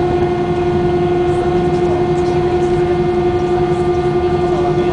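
Cabin noise inside an Airbus A320 on the ground at night, most likely while taxiing: a steady hum from the engines and air conditioning, with a constant droning whine over a low rumble.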